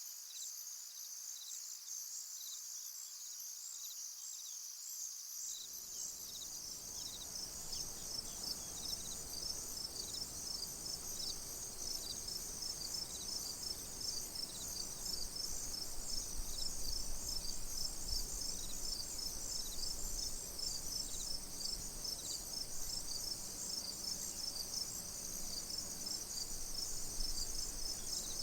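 A chorus of many crickets chirping steadily in dense, rapid high-pitched pulses. A low background rumble joins about five seconds in.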